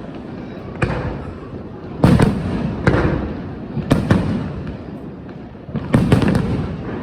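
New Year fireworks shells bursting overhead: a string of sharp bangs a second or so apart, with a quick run of three near the end. Each bang trails off in a low rumbling echo.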